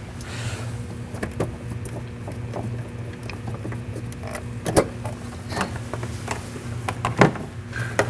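A refrigerant identifier's hose coupler being worked off an A/C service port: handling noises and a few sharp clicks, the loudest about five and seven seconds in, over a steady low hum.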